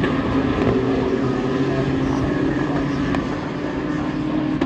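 GT3 race cars' engines running at speed on the circuit, a steady, dense engine drone.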